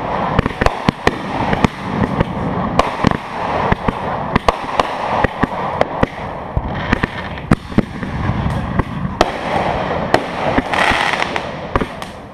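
Ground-level consumer fireworks firing close by: a continuous hiss broken by many sharp pops and bangs at an uneven pace, several a second.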